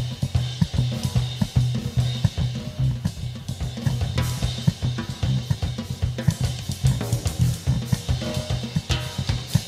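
Drum kit played fast and busily, with snare, bass drum and cymbal strikes crowding together, over a steady low bass in a live band.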